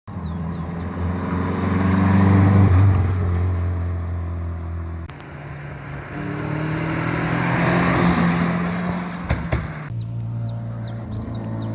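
Car engines running steadily and swelling louder twice, in short clips joined by abrupt cuts about five and ten seconds in. A few short high chirps near the end.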